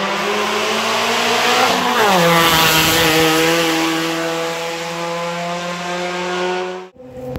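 Race car engine at full throttle going past, its pitch climbing, then dropping sharply about two seconds in, then holding steady as it slowly fades away. The sound cuts off suddenly near the end.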